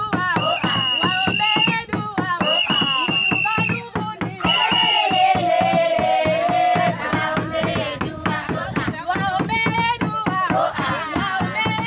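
A group of women singing and clapping in a quick rhythm, with several high notes held for about a second each and cries over the singing.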